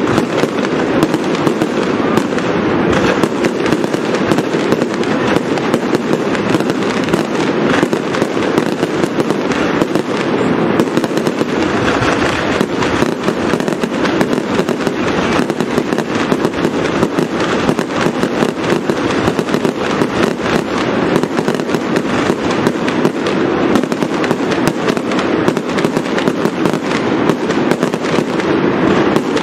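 Aerial fireworks in a continuous barrage: shell bursts and crackle following one another too closely to count, at a steady loud level with no pauses.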